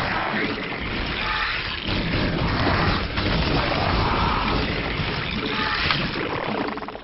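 StarCraft game audio: a dense, continuous jumble of battle sound effects as Zerg units fight.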